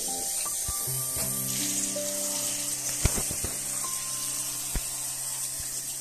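Water spraying from a handheld shower head onto a soapy puppy, a steady hiss, under background music. A couple of light knocks come near the middle.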